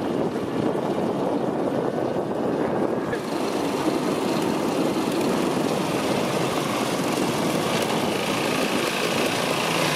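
Old, badly worn lawnmower engine running steadily under load as it drives the bicycle car's rear wheel through a friction roller. About three seconds in the sound gets brighter and closer.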